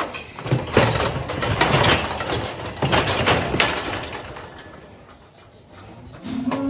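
Clattering metal knocks and rattles for about four seconds, typical of steel cattle gates and a handling chute as cattle move through, then quieter, with a brief low steady tone near the end.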